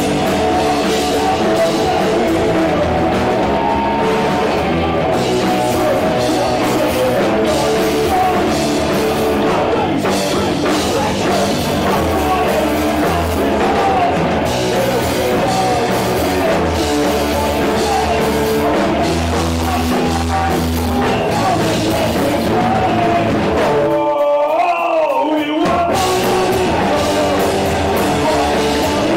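Rock band playing loudly live. About 24 seconds in, the bass and drums drop out for a second and a half, leaving a lone wavering note, and then the full band crashes back in.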